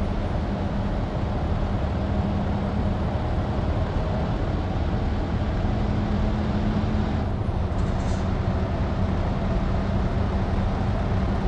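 Heavy truck engine running steadily under load with road noise while hauling a 54-ton load, a constant low drone throughout.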